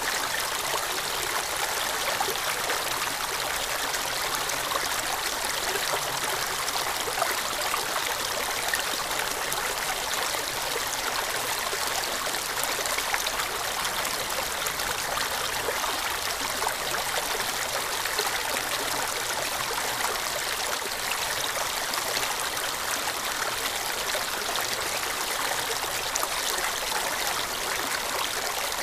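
Shallow stream water running over rocks, a steady trickling and splashing.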